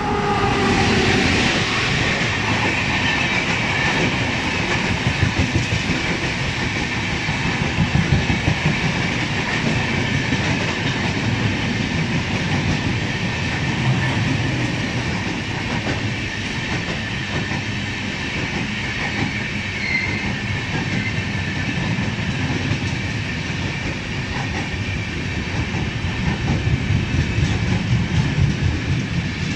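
WAP-7 electric locomotive passing at speed, about 80 km/h, its tones dropping slightly in pitch as it goes by in the first second, then a long rake of LHB passenger coaches rolling past: a loud steady rumble with wheels clattering over the rail joints and a steady high ring from the wheels on the rails.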